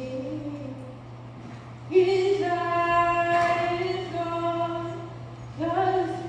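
A solo voice singing a musical-theatre song in a large auditorium: a soft phrase, then about two seconds in a louder long held note lasting about three and a half seconds, and a new phrase beginning near the end.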